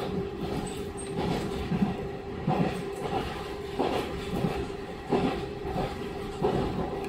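Onboard running sound of a KiHa 40 2000-series diesel railcar under way: a steady diesel drone, with the wheels knocking over rail joints about once a second.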